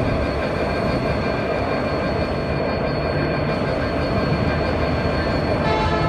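Diesel locomotive hauling a train of LHB passenger coaches, running steadily toward the listener on curved track. A continuous rumble of engine and rolling wheels, with a faint steady high tone above it.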